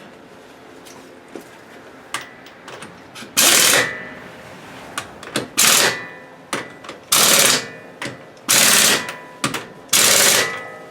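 Power impact wrench running lug nuts onto a car wheel: five short bursts of hammering, one per nut, with metallic clicks of the socket between them.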